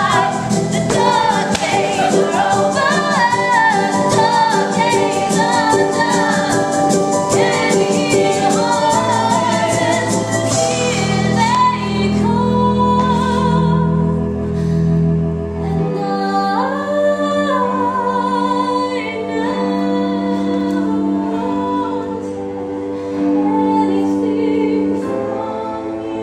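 Music with singing: voices over a quick, steady beat, giving way about eleven seconds in to long held low notes under slower singing.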